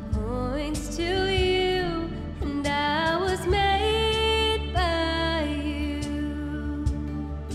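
A woman singing a worship song, gliding into and holding long notes, over acoustic guitar and a steady low band backing.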